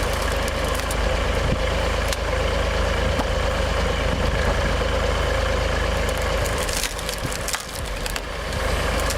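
A log-splitting machine running with a steady engine drone while wood is split, with several sharp cracks and splintering as logs break apart.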